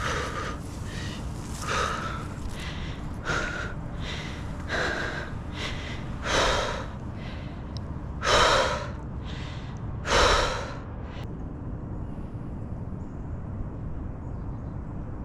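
A climber breathing hard, out of breath from the climb: about seven heavy, rushing breaths one and a half to two seconds apart, the last three loudest, stopping about eleven seconds in.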